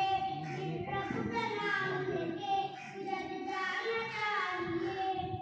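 A young boy singing a naat, an Urdu devotional poem, unaccompanied, in long held notes that bend in pitch.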